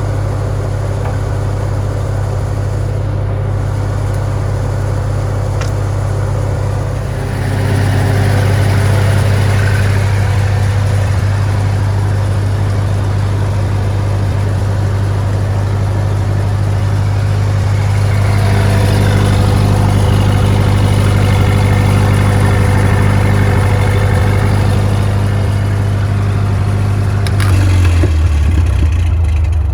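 Farmall tractor engine running steadily, powering a board edger; a rougher cutting noise comes in about 7 seconds in and again from about 18 seconds, and the engine note shifts lower near the end.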